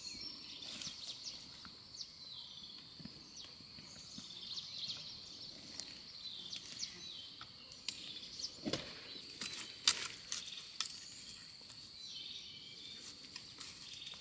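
Countryside ambience: a steady high insect drone, with a bird call repeating every couple of seconds. A few sharp knocks come through around the middle, the loudest about ten seconds in.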